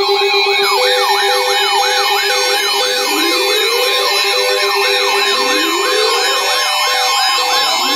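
An Emergency Alert System alert tone layered with several electronic siren sounds. A fast yelp repeats about three times a second, a slower wail rises about every two and a half seconds, and a short beep comes about twice a second. A lower steady buzzing tone cuts out a little before the end.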